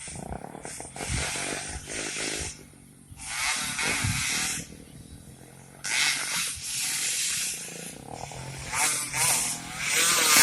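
Racing motorcycle engines revving hard and passing in repeated loud bursts, the pitch rising and falling, with quieter gaps between.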